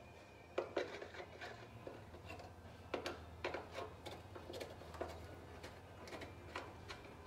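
Scattered light metallic clicks and taps from hand work on a car's bare sheet-metal firewall, with bolts and parts being handled, over a low steady hum.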